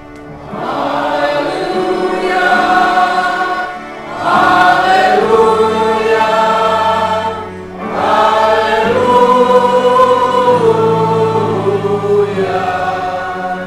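Church congregation singing a hymn together, with an organ under the voices. The hymn comes in three long phrases, with brief breath pauses about four and seven and a half seconds in.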